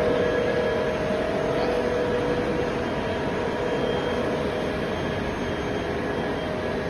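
Backhoe loader running: a steady engine and machine noise with a few thin whining tones over it.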